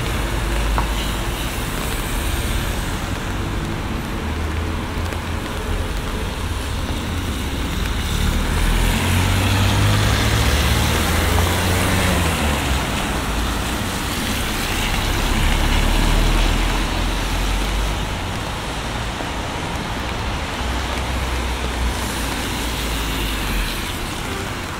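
Road traffic passing on a wet street in the rain. A constant low engine rumble runs under the hiss of vehicles going by, which swells loudest about ten seconds in and again around sixteen seconds, with falling rain beneath.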